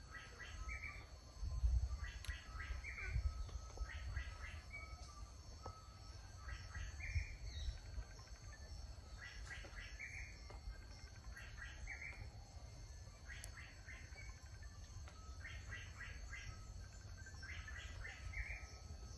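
A bird singing a short phrase of quick chirps over and over, about once every two seconds, over a low rumble.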